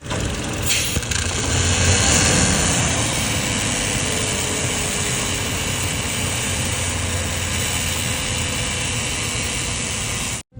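Car engine idling with a steady hiss over the running: the noise of a bad PCV valve.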